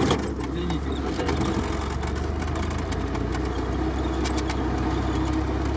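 Off-road vehicle's engine running steadily at low revs, heard from inside the cab, with a few faint clicks and rattles.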